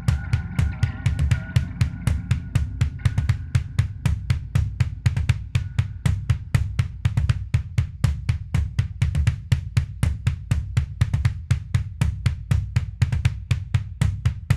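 Music with no vocals: a steady drum kit beat, about four hits a second, over a heavy bass. A held higher tone fades out in the first few seconds.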